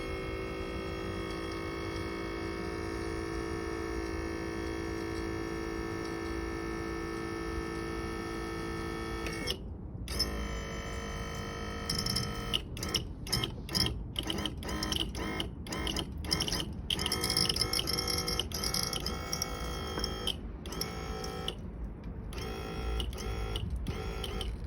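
Electric power trim and tilt pump motor on a 1992 Johnson 88 Special outboard running, a steady whine for about nine seconds, a brief stop, then many short stop-start runs, tilting the motor up.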